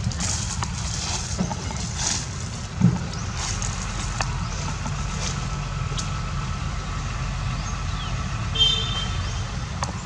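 Steady low outdoor rumble, with scattered faint clicks, a louder knock about three seconds in and a short high squeak near the end.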